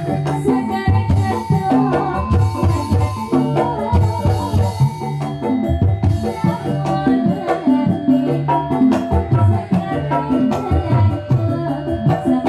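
Live Banyumasan lengger music: a kendang hand drum beats a steady rhythm of low strokes under held electronic keyboard tones.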